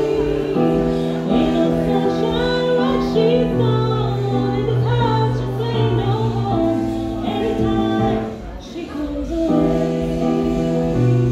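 A woman sings while playing sustained chords on a digital stage piano. The music dips briefly about eight and a half seconds in, then the chords come back.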